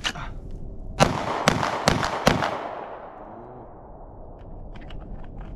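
A 9mm pistol fired four times in quick succession, about 0.4 s apart, each shot echoing off the range. The string is fired from the draw. A single click comes a second before the first shot.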